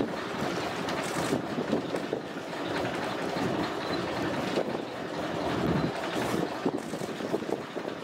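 Wind buffeting the microphone on a boat at sea: an uneven rushing noise that swells and eases in gusts.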